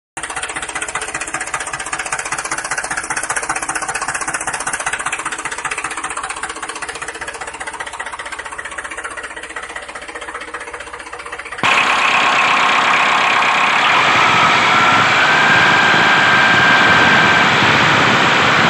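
Engine running with a rapid knocking beat. About two-thirds of the way through it switches abruptly to a louder, smoother engine sound.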